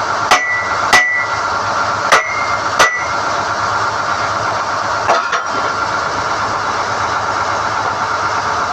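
Core-drilling rig's engine running steadily under load while NQ drill rods are pulled, with four sharp ringing clanks of steel striking steel in the first three seconds and a softer double knock about five seconds in.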